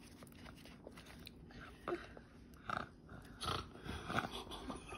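A toddler eating a frosted cupcake: a few short, soft mouth sounds of biting and chewing, starting about two seconds in.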